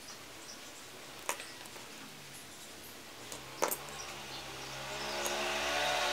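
Two sharp clicks as a plastic lighter and the paracord band are handled and the lighter is set down on a bamboo mat, the second click about three and a half seconds in. Then a motor engine hum swells steadily louder over the last two seconds and is the loudest sound by the end.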